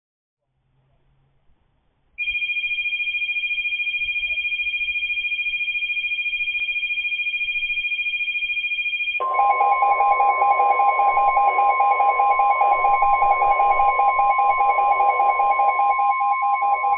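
Weather radio alert tones announcing a flood warning. About two seconds in, a steady high two-note tone starts; about seven seconds later it gives way to a louder, lower steady tone with a pulsing beep over it, which stops right at the end.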